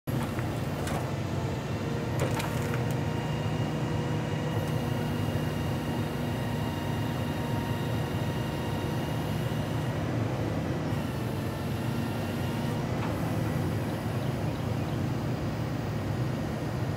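Pac-Mac grapple loader truck running steadily, its engine and hydraulics powering the knuckle boom as the grapple lifts a log. A thin high whine comes and goes over the low running sound, with a few sharp knocks in the first few seconds and another about thirteen seconds in.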